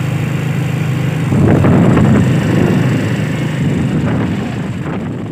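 Engine and road noise of a moving vehicle, heard from on board. A steady hum grows louder about a second and a half in and eases off near the end.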